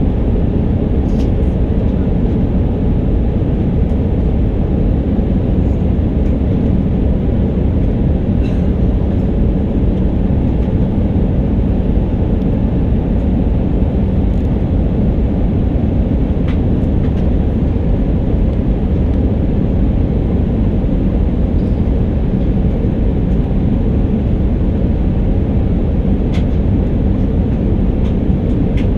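Steady cabin noise inside an Airbus A319 in flight: a continuous low roar of engines and airflow with a faint steady hum, unchanging throughout.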